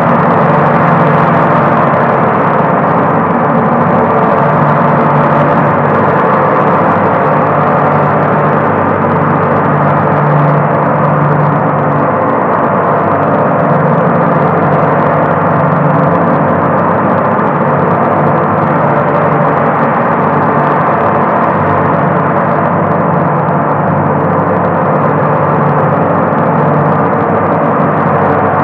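Large frame-hung gong played continuously, giving a loud, steady wash of many overlapping ringing tones with no separate strikes standing out.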